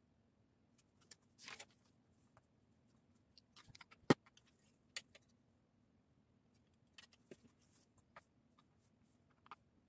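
Plastic Lego bricks being handled and pressed together: scattered clicks and clacks, the sharpest a little after four seconds in, with a brief rustle about a second and a half in.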